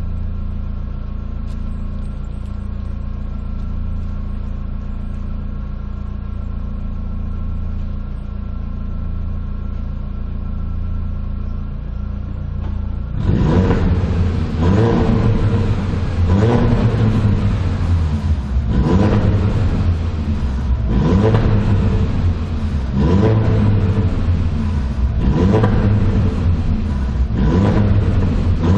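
Audi TT 225 quattro's 1.8-litre turbocharged four-cylinder heard through an aftermarket exhaust (cat-delete pipe, Ragazzon centre silencer, Remus rear silencer), idling steadily. About halfway through it starts being revved in short throttle blips, roughly one every two seconds.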